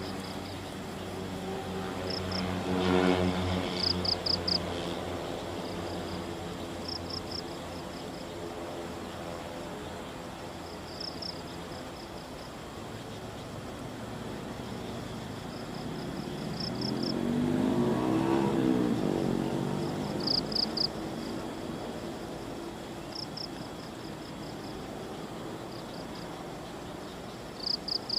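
Engine of a passing vehicle fading away over the first dozen seconds. Another passes by about two-thirds of the way through, rising and then falling in pitch. Insects chirp in short, high trills every few seconds.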